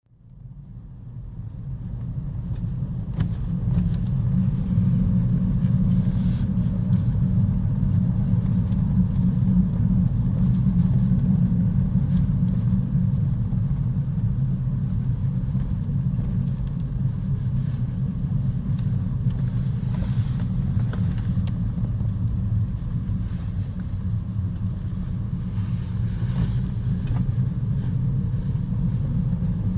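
Low driving rumble of a moving Lexus CT 200h heard inside the cabin, fading in over the first few seconds, then steady. A few faint clicks are scattered through it.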